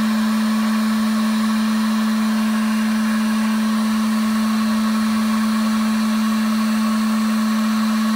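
Heat gun running steadily on its low setting: an even blower rush with a strong, constant low hum.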